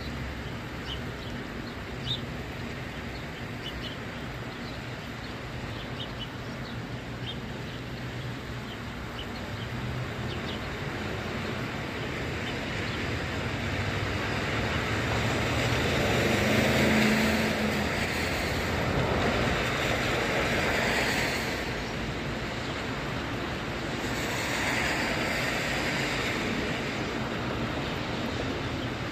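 Road traffic on a wet street: vehicles passing with their tyres hissing on the wet pavement, swelling and fading twice over a steady low hum.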